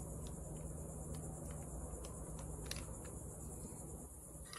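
A few faint, light clicks of steel shift forks being handled and seated on a Tremec TR6060 transmission's main shaft, over a steady low hum.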